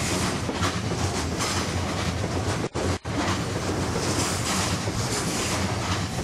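Container freight train of Koki flatcars passing close by at speed: a steady loud rush and rumble of wheels on rail. The sound cuts out twice, briefly, about three seconds in.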